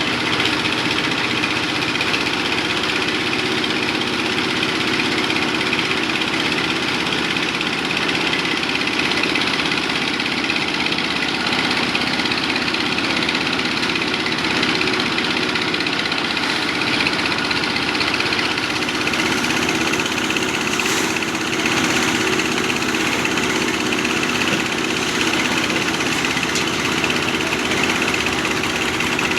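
Engine of concrete-pouring machinery running steadily and without pause.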